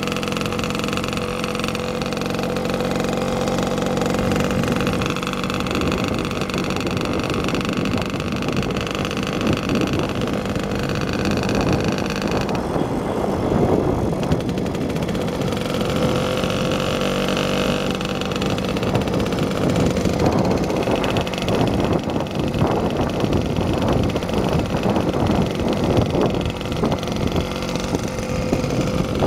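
An engine running steadily: a constant drone with a faint held tone. From about halfway through, rough noise on the microphone rides over it.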